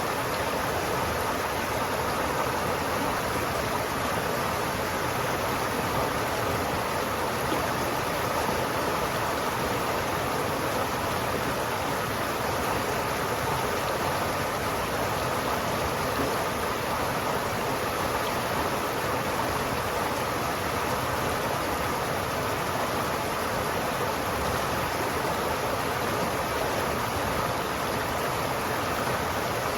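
River water flowing steadily, a continuous even rushing with no breaks.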